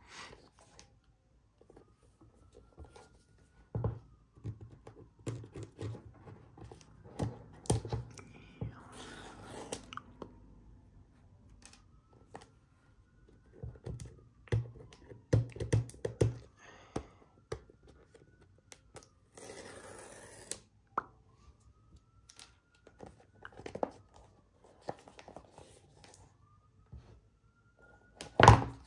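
An Apple Watch Ultra box and its packaging being handled in an unboxing: irregular taps, clicks and rustles, with two longer tearing sounds about 9 and 20 seconds in.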